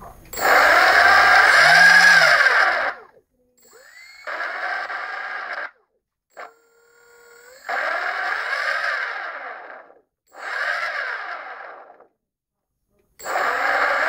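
Brushless outrunner motor making a grinding noise that keeps cutting in and out: five runs of one to three seconds each, broken by short silences. Between the second and third runs there is a brief thin tone that steps up in pitch.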